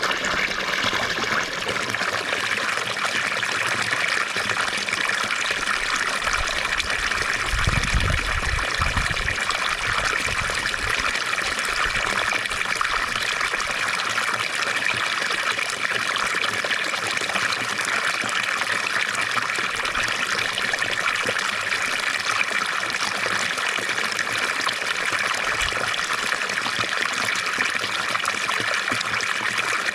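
Water from a fountain trickling and splashing steadily, a continuous bright hiss of falling water, with a brief low rumble about eight seconds in.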